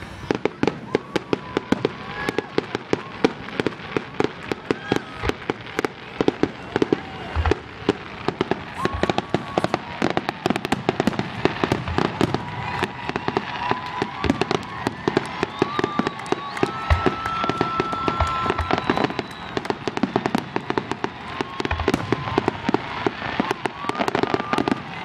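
Fireworks and firecrackers going off in rapid succession: a dense run of sharp pops and bangs, several a second, with no pause.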